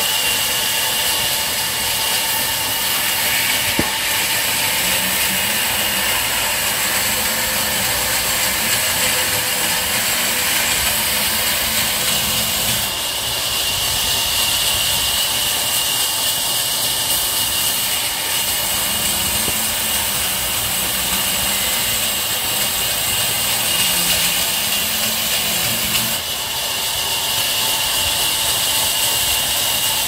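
Sawmill band saw running and cutting through a kauri log, a steady loud hiss with a high whine. The whine eases a little less than halfway through and comes back strongly a few seconds before the end.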